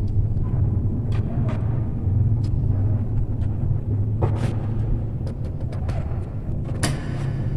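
Steady low rumble in the background, with scattered light clicks and taps as a blue wire is handled and fitted into the terminal of a plastic power socket.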